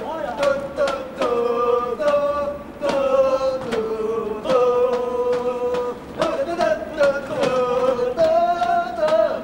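Several young men singing loudly together, holding long notes, with a guitar strummed along.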